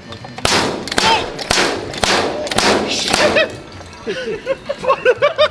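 Soda bottles popped open one after another with a bottle opener: about six sharp pops roughly two a second, each followed by a fizzing hiss of escaping gas. Voices follow near the end.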